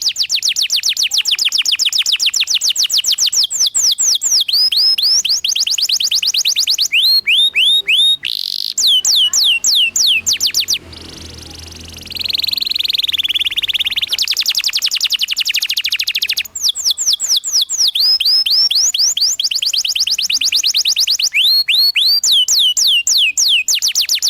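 Domestic canary singing a loud, continuous rolling song, fast trills of repeated high notes that each sweep downward, changing from one trill to the next. There is a brief softer passage a little before the middle.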